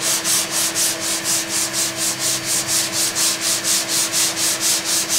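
Hand sanding of cured body filler with 120-grit paper on a small sanding block, in light, quick back-and-forth strokes of about four a second, rubbing the filler down smooth over a small dent in a steel van door.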